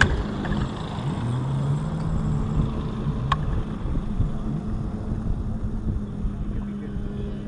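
A motor engine running, its pitch dipping and rising, over wind rumble on the microphone. A single sharp click comes a little after three seconds in.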